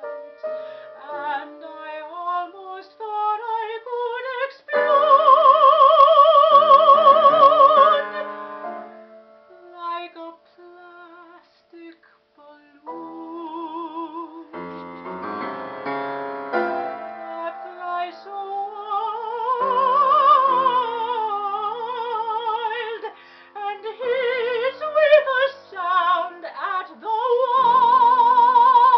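A female opera singer singing a solo line with wide vibrato over piano accompaniment, holding a loud high note about five seconds in and another near the end.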